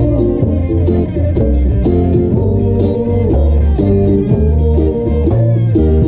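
Reggae band playing: electric guitars, ukulele and electric bass over a steady beat, with the bass holding deep notes.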